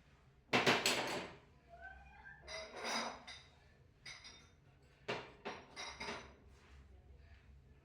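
Glassware and kitchen containers clinking and knocking as they are handled and set down, in a few short clatters separated by quieter gaps.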